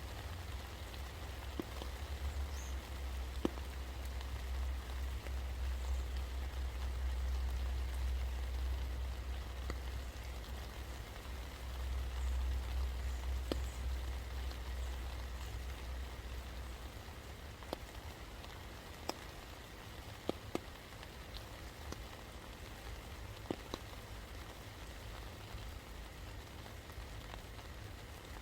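Steady rain falling, with scattered single drops ticking sharply over the hiss. Under it is a low rumble that fades out about two-thirds of the way through.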